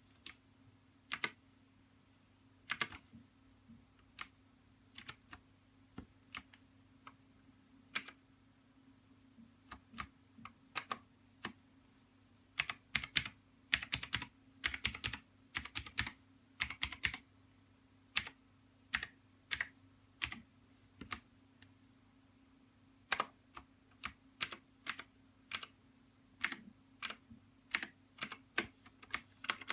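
Keystrokes on a TeamWolf Zhuque hot-swappable mechanical keyboard. Single presses come about once a second at first, then quicker runs of several keys in a row.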